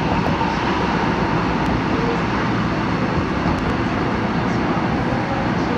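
Seoul Line 9 9000-series electric subway train running at speed: a steady, unbroken rumble and rush of wheels on rails, with a faint hum of steady tones.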